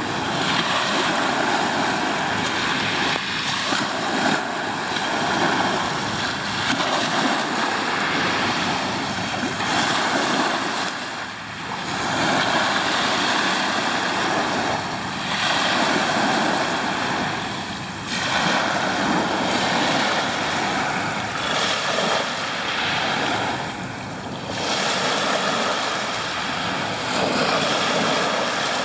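Sea waves washing on the shore: a steady rush of surf that swells and eases every few seconds.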